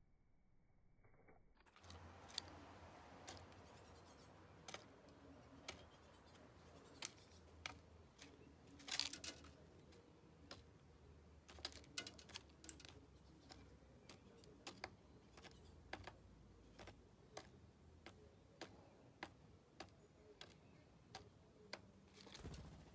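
Eurasian blackbird pecking at seeds in a wooden bird feeder: sharp, irregular beak taps and clicks, about one or two a second, starting about two seconds in, with a quick cluster about nine seconds in.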